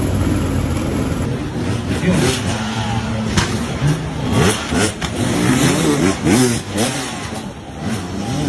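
Hard enduro dirt bike engines revving in repeated short rising-and-falling blips, with a few sharp knocks among them.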